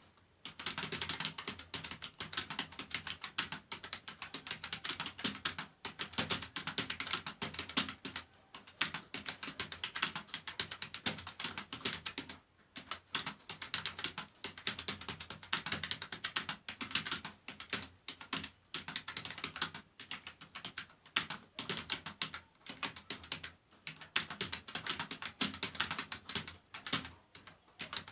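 Fast, continuous typing on a computer keyboard, a rapid stream of key clicks broken by a couple of brief pauses.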